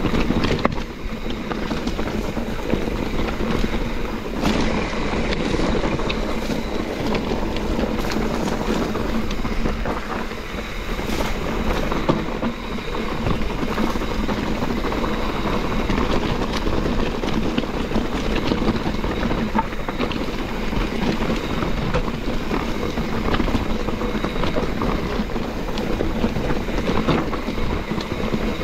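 A YT Capra mountain bike riding down a rocky, gravelly single track: a steady rush of tyre and trail noise, with frequent sharp knocks and rattles from the bike as it hits rocks.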